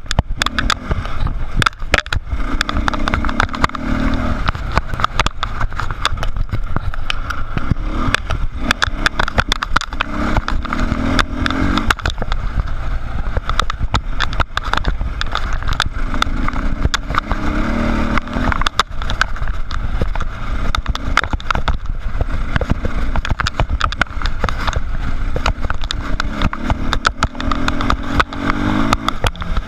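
Dirt bike engine running under load on a rocky trail, swelling and easing every few seconds as the throttle is worked. Frequent sharp knocks and rattles from the bike jolting over rocks sound through it.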